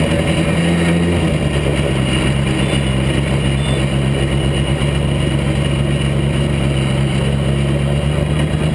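Motorcycle-engined Jedi single-seater racing car's engine running at low, steady revs as the car rolls slowly, heard from the cockpit, with a slight drop in pitch about a second in.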